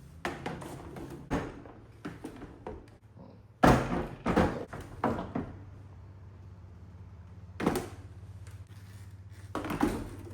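Heavy batteries being set and shifted into a power station case: irregular knocks and thunks in clusters, the loudest group about four seconds in.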